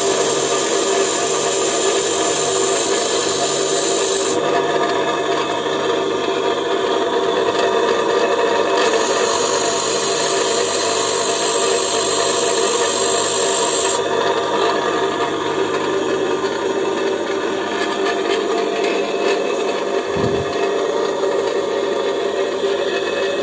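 Bench grinder running steadily while a high-speed-steel lathe cutting tool is ground on its abrasive wheel. The grinding hiss comes in two spells: about four seconds at the start, and again from about nine to fourteen seconds in.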